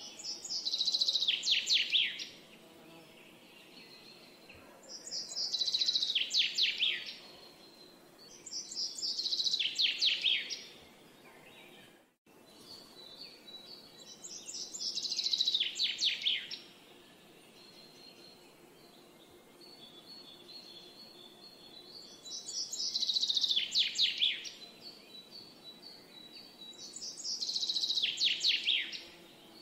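A songbird singing a short song of rapid notes that fall in pitch, each phrase about two seconds long, repeated six times with pauses between, over a faint steady background hum.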